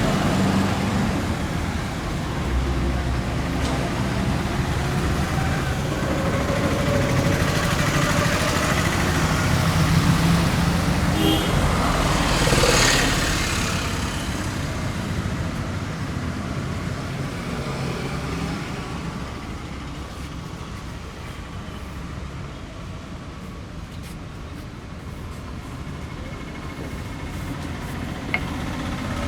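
Street traffic running steadily, with one vehicle passing close about twelve seconds in, then fading. A single sharp click near the end.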